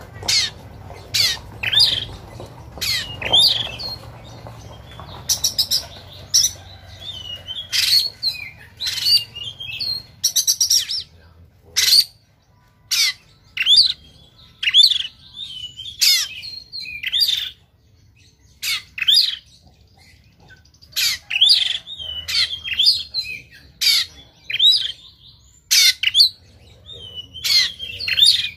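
Oriental magpie-robin singing its harsh, aggressive fighting song: rapid runs of sharp, rough notes mixed with short warbling phrases, broken by a couple of brief pauses.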